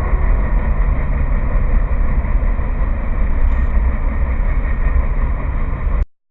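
CSX freight train with a locomotive-and-slug set passing close by: a steady low rumble of the diesel locomotive and rolling train. It cuts off suddenly about six seconds in.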